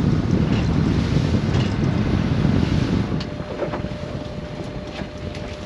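Small fishing boat under way, with strong wind buffeting the microphone. The wind rumble drops away about three seconds in, leaving a quieter running boat and a faint steady tone.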